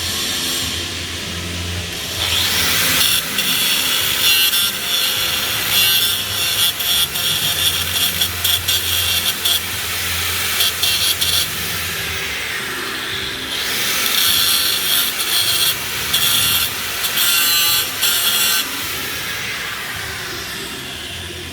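Flux-cored arc welding on pipe: two runs of steady crackling arc, the first about ten seconds long, then a short break and a second run of about five seconds. A low electrical hum sits under it throughout.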